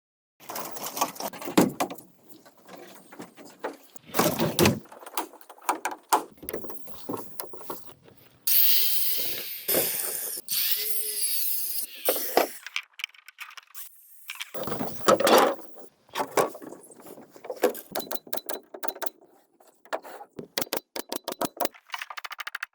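Bamboo being worked by hand: a string of knocks and clicks, then a few seconds of steady rasping with two short squeaks about halfway through, more knocks, and a quick run of clicks near the end.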